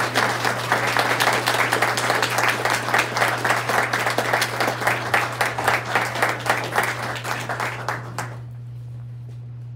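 Audience applauding, dying away about eight seconds in, over a steady low hum.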